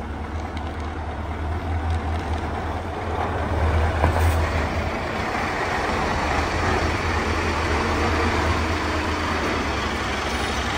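Scania R650's 16-litre V8 diesel engine running at low revs, a steady deep rumble, as the truck rolls slowly into the workshop. A brief sharp sound comes about four seconds in.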